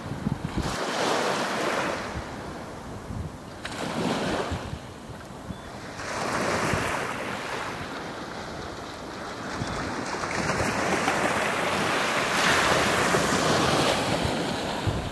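Small waves breaking and washing up a sandy beach, swelling and easing every few seconds, with wind buffeting the microphone.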